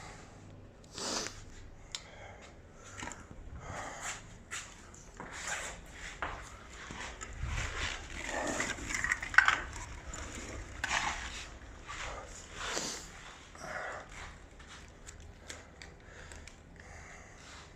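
Heavy breathing of a man working through leg press reps: a series of hard exhalations, about one a second, building to a louder, strained stretch near the middle of the set.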